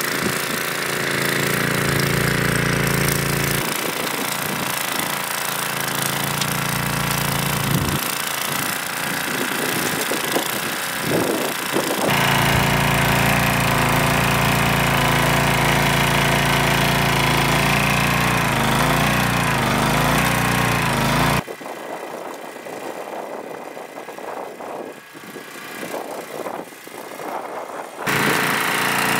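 Rear-tine rototiller's small gasoline engine running under load as it tills sod and garden soil, its pitch wavering as the load changes, with wind noise over it. The sound drops to a quieter stretch for several seconds near the end.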